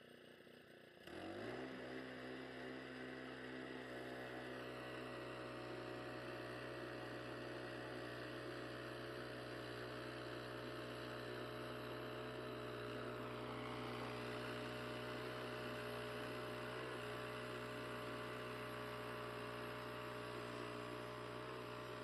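Small gasoline engine on a Hudson Little Oscar walk-behind band sawmill running at a steady speed, a constant hum as the saw head is pushed along a red oak log cutting a board. It comes in about a second in.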